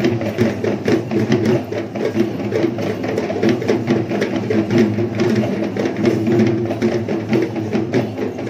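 Traditional Sri Lankan barrel drums beaten by a procession troupe in a fast, dense, unbroken rhythm of many strokes a second.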